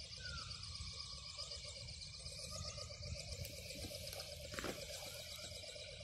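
Wind rumbling on the microphone, with a steady, finely pulsing high-pitched sound above it and a brief knock about four and a half seconds in.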